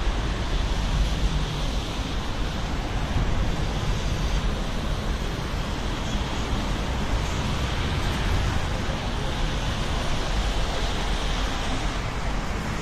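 Steady rushing rumble of jet airliner engines as an aircraft climbs away after take-off, mixed with wind on the microphone.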